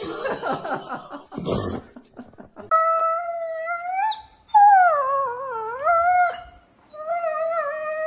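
A dog howling in three long, wavering howls; the second, loudest one sags in pitch and climbs back. Before the howls, about two seconds of short, noisy rustling.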